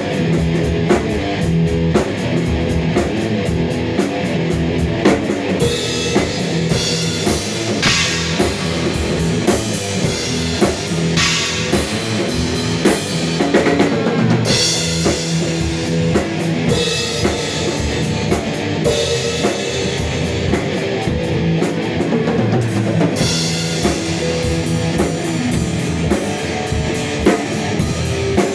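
Instrumental rock played live on electric guitar and drum kit, the guitar riffing over a steady beat, with several cymbal crashes.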